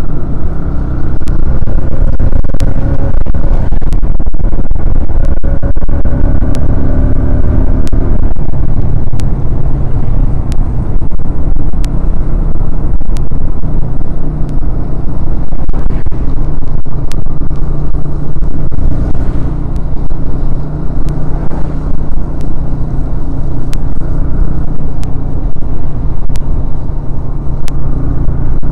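Motorcycle riding at speed on a wet road: the engine running steadily under a loud, continuous wind rumble on the rider's microphone.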